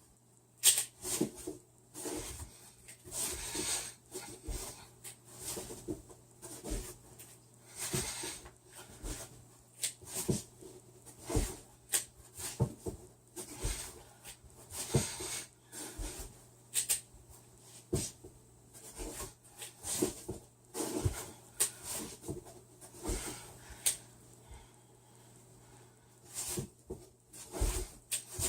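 Heavy breathing from a person doing push-ups, a short puff of breath every second or so, mixed with light clicks and knocks as a speedcube is turned between push-ups.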